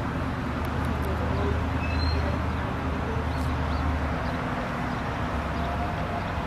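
Steady low rumble of distant road traffic, with a few faint bird chirps.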